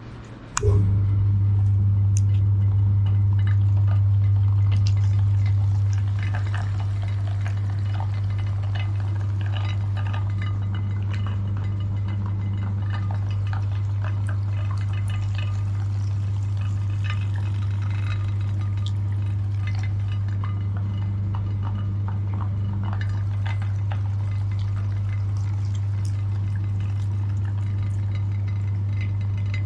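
Electric meat grinder switched on, its motor running with a loud steady low hum that settles slightly quieter about six seconds in, with wet squelching and small clicks from jelly being forced through it.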